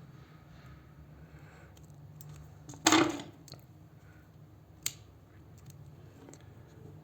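Small tools and tablet parts being handled on a work surface: faint ticks, a loud brief clatter about three seconds in, and a single sharp click about two seconds later.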